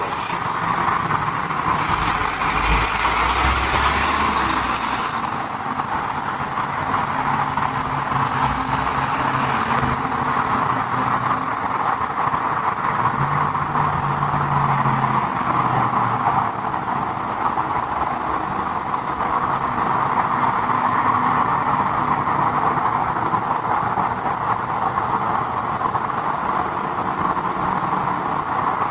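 Steady hissing background noise through a doorbell camera's microphone, with a faint low hum under it.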